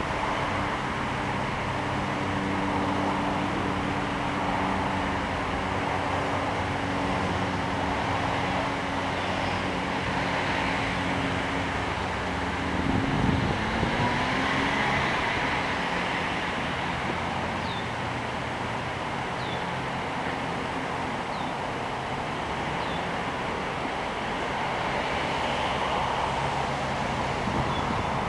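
A steady low engine hum under wind noise; around halfway through its pitch rises, then it fades into the hiss. Several short, high, falling chirps come in the second half.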